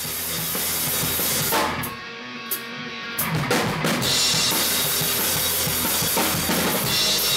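Drum kit being played, with kick drum, snare and cymbals. After a brief sparser stretch with a few single hits, the full beat with cymbal wash comes in about three and a half seconds in.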